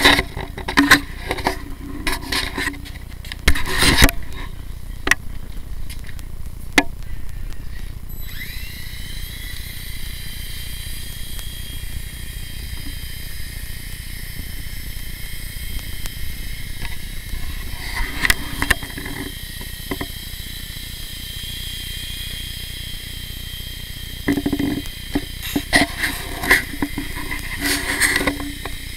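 Blade mCX Tandem Rescue micro RC helicopter's small electric motors spinning up about eight seconds in, then running with a steady high whine from the motors and twin rotors. Before the spin-up and again near the end there are scattered clicks and knocks.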